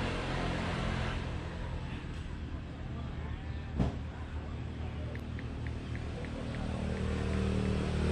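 A motor engine running steadily, with one sharp click about four seconds in and a quick run of faint high ticks in the second half.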